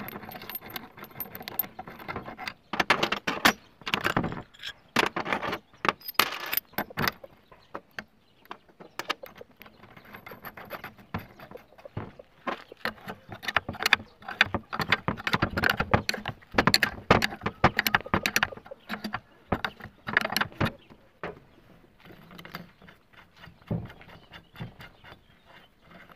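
Ratchet wrench clicking in short bursts, with metal parts clinking, as a homemade bolt-and-socket puller is tightened on a Honda Dio scooter's aluminium crankcase half.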